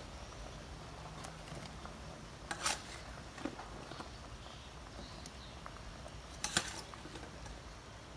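Pot of coconut-milk green curry bubbling at the boil with small pops, and two short splashes about two and six and a half seconds in as eggplant pieces are dropped into it.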